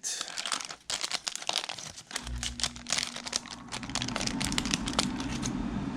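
Plastic wrapper of a basketball trading card pack crinkling and tearing as it is pulled open, in a dense run of crackles that thins out near the end. Under it, from about two seconds in, a low steady rumble.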